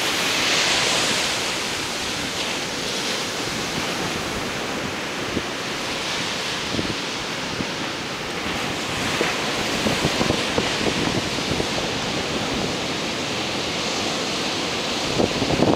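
Ocean surf breaking and washing up a sandy beach: a steady rush that swells as waves break, about a second in and again around the middle, with wind buffeting the microphone.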